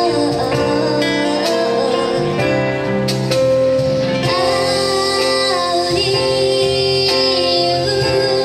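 Live pop ballad: a woman singing over a band of keyboard, acoustic guitar, bass and percussion.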